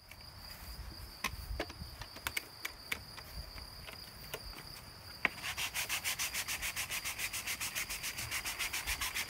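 Faint steady high whine with a few scattered clicks; about five seconds in, a rapid, even rasping starts, about seven strokes a second.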